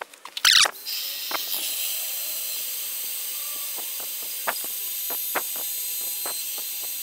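Drill spinning a brazed-diamond tile bit as it grinds into hard polished porcelain tile: a steady high-pitched hiss with scattered light ticks, after two short loud bursts within the first second.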